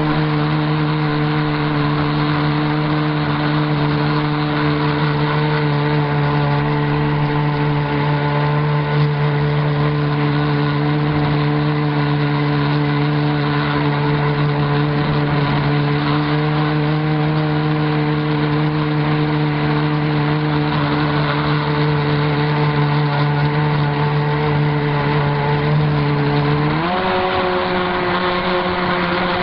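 A radio-controlled speedboat's motors running flat out at a steady high pitch, heard from on board over the hiss of water and wind. Near the end the pitch steps up sharply, then begins to fall.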